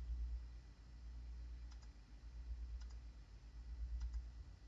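Computer mouse button clicked three times, about a second apart, each a quick double tick of press and release, over a low steady hum.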